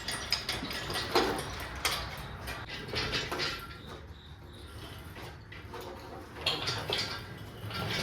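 Scattered light knocks and rattles of metal hardware, a few in the first half and a cluster near the end, as a cherry picker engine hoist and its chain are rigged to lift the engine.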